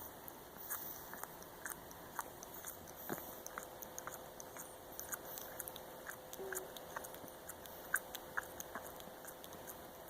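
Black pug puppy making small wet sucking and smacking clicks with its mouth while asleep, several a second at an irregular pace, which the owner guesses is him dreaming of nursing.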